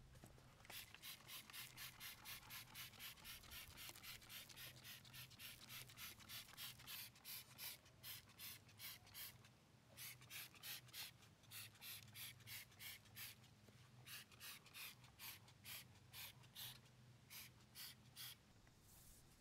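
Hand trigger spray bottle of degreaser squirted over and over, a short spritz about three times a second, with two brief pauses along the way.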